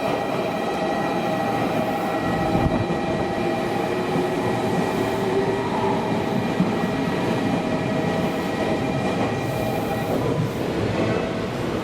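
Meitetsu electric train moving through the platform, running with a steady rumble and a high whine made of several held tones.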